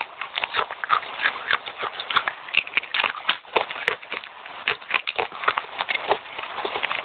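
Rapid, continuous crunching of wet red clay chips being chewed, a dense run of sharp crackling crunches many times a second.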